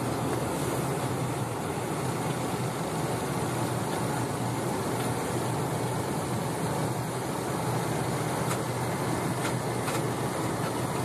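Steady vehicle noise heard from inside a moving car's cabin: a constant low engine hum with road and tyre rush.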